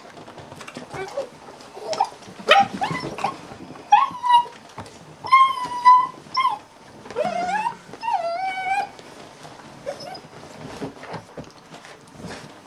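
A black German Shepherd puppy whimpering and crying while it is held and dosed with wormer: a string of high-pitched whines and yelps, some held for about a second and one rising in pitch.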